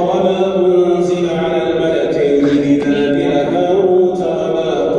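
An imam's melodic Quran recitation during tarawih prayer: one voice chanting in long, held notes.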